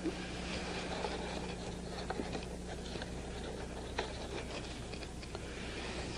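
Faint scattered clicks and rustling from folded great-circle discs being handled and pinned together with bobby pins, over a steady low electrical hum and hiss.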